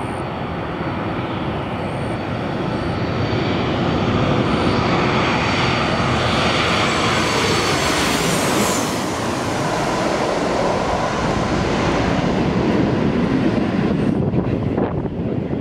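Twin-engine jet airliner landing, passing low overhead with gear down: the engine roar builds, and a high whine slides down in pitch as it goes over about eight to nine seconds in, then a heavy rumble carries on after it.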